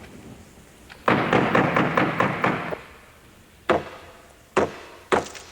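A dense clattering noise for about a second and a half, then three separate knocks on a door, spaced about a second apart.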